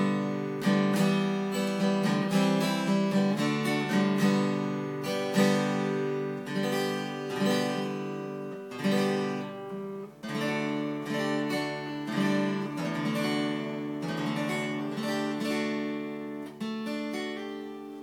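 Early-1970s Yamaha FG red label steel-string acoustic guitar being played, with chords strummed and picked and the notes ringing on. The playing dies away near the end.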